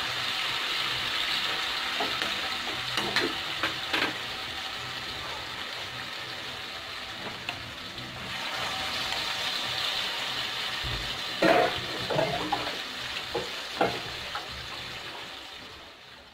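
Potato vadas in amaranth-flour batter deep-frying in a kadhai of hot oil: a steady sizzle with a few sharp clinks of a slotted spoon against the pan. The sizzle grows louder about eight seconds in as more battered balls are dropped into the oil.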